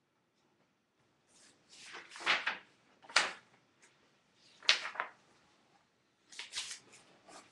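A large book being handled and moved close to the microphone: four bursts of rustling and knocks, the loudest about two to five seconds in.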